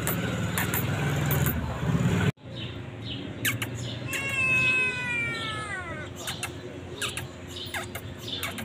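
A hungry stray kitten gives one long meow about four seconds in, falling in pitch over about two seconds. A low rumble with scattered clicks fills the first two seconds and stops abruptly.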